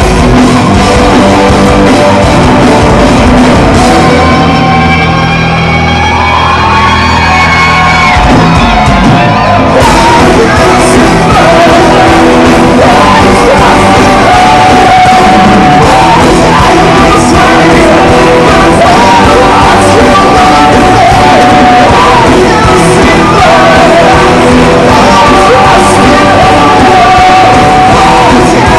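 Live rock band playing with a lead singer in a large hall, loud. About four seconds in the band drops back to long held chords while a note slides upward, and the full band with drums crashes back in around ten seconds.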